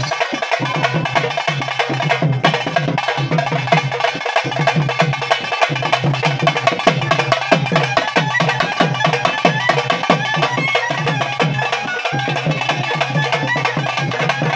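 Music with fast, continuous drumming.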